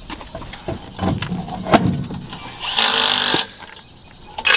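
Impact wrench run in one short buzzing burst about three seconds in, after a string of metal clanks and knocks from handling the wheel and lug nuts.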